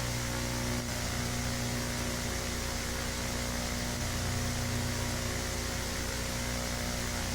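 Steady electrical hum with several overtones under a bed of hiss and static, like a dead broadcast signal.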